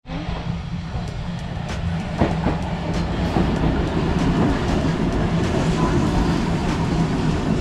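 Purple Randen (Keifuku Electric Railroad) tram pulling in along a station platform. Its wheels rumble steadily on the rails, with a few clicks from the track about two seconds in.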